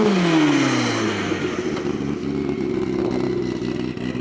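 Racing snowmobile engine at high speed, its pitch falling steeply over the first second as the sled goes by. A steady engine drone of nearly constant pitch follows.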